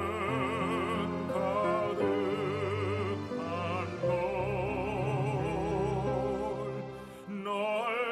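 Operatic baritone singing a slow ballad with a wide vibrato, over sustained instrumental accompaniment.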